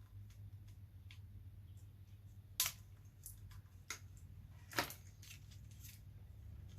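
Three sharp clicks and clacks of hard parts being handled on a workbench, spread out over a few seconds, over a steady low hum.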